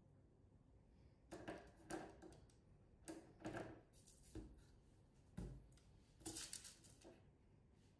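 Faint handling noises: a run of short knocks, taps and rustles as a cheesecake in its mould is set down on a metal wire cooling rack and the mould is lifted off, with a couple of soft thuds in the middle.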